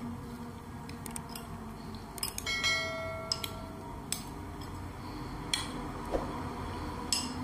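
A steel spoon clinks and taps against a glass bowl as wet, marinated prawns are stirred, with sharp clicks every second or so. About two and a half seconds in, one brief bright ringing chime sounds.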